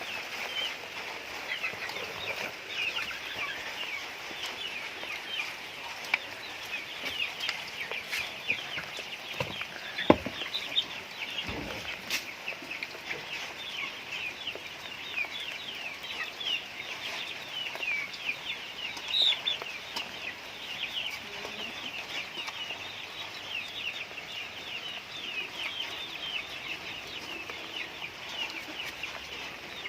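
A flock of chickens calling steadily, many short high cheeping calls overlapping throughout, with a couple of sharp knocks about ten and twelve seconds in.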